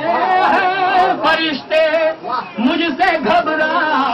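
A man singing an Urdu manqabat, a devotional poem in praise of a saint, solo into a microphone. His voice wavers on long held notes, with brief breaths a little before halfway.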